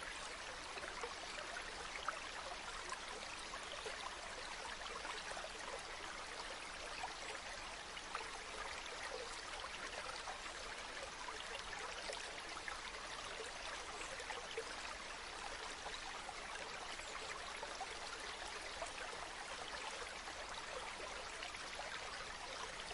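A shallow stream or river running steadily, a continuous babbling rush of water with small splashes and trickles.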